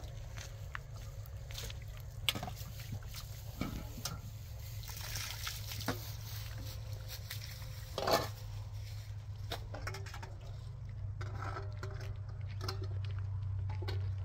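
Dishes being washed by hand in water: water sloshing and splashing in metal bowls, with scattered clinks and knocks of metal dishware. The loudest is a single clatter about eight seconds in.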